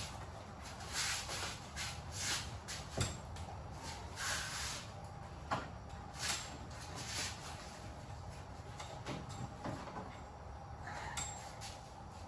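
Weathered golf cart canopy curtains being ripped and pulled off the frame: a series of short rustling, tearing bursts of fabric, with a couple of sharp clicks.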